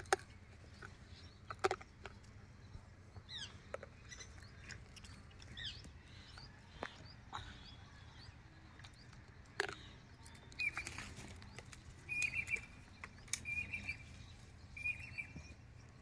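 Birds chirping outdoors: a few short sweeping chirps in the first seconds, then a repeated pulsing call from about ten seconds in, over scattered sharp clicks and rustles.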